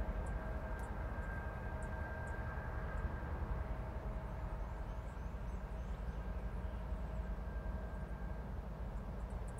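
Freight train rumbling steadily as it runs on the curve: a deep continuous rumble with two faint steady whining tones over it.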